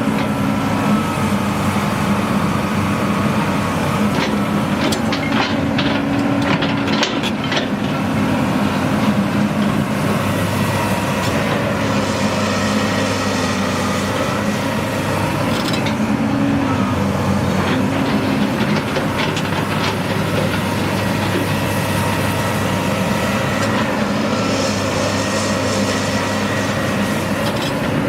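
John Deere 330C LC crawler excavator's diesel engine running steadily with the hydraulics whining, and a run of metallic clicks and clanks between about four and eight seconds in.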